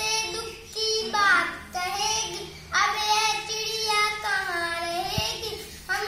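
A young girl singing a Hindi children's poem without accompaniment, in several phrases separated by short pauses.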